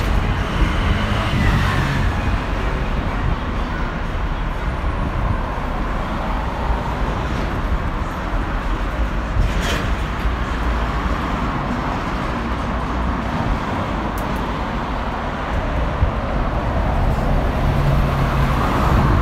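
City road traffic: a steady rumble and hiss of passing vehicles, with a brief louder hiss about halfway through.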